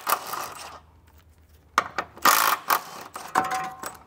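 Milwaukee Fuel cordless impact wrench hammering in two short bursts, breaking loose the 16 mm bolts of a front lower control arm, with a few light metallic rings near the end.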